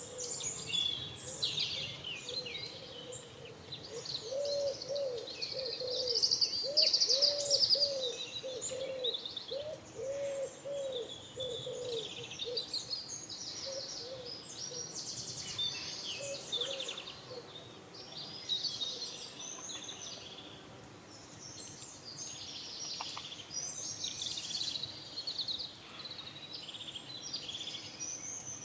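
Many small birds chirping in high, overlapping calls, with a pigeon cooing in a run of repeated low notes from about four seconds in until about halfway, over a steady low outdoor hum.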